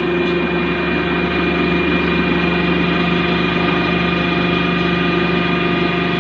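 Industrial machine running steadily, a constant hum with a high whine over it.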